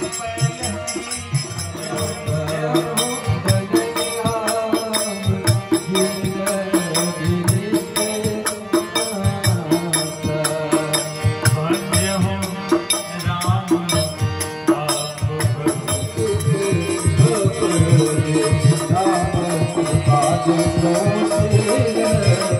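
Live Hindu devotional folk music: a melody carried over a quick, steady beat of hand drum and rattle-like percussion.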